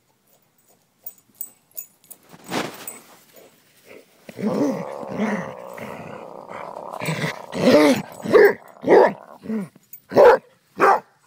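Dog barking and growling back at its owner: a drawn-out grumbling growl broken by barks, then four short, sharp barks near the end.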